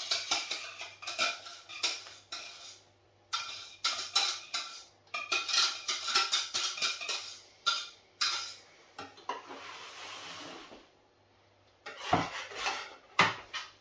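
A utensil scraping round a stainless steel saucepan in quick repeated strokes, with metallic clinks, as thick pastry cream is emptied into a metal baking tray. Near the end a whisk beats the cream in the tray.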